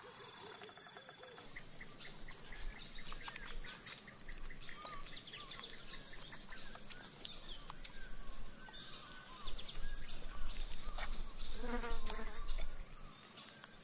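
Bush ambience: many birds chirping and calling over a background of insects, with a fast run of ticks in the first couple of seconds and a louder call a little before the end.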